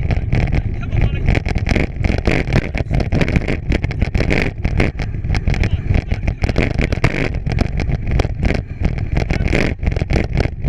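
A bike being pulled along a rough trail: wind rumbling on the microphone and the bike rattling and knocking over bumps.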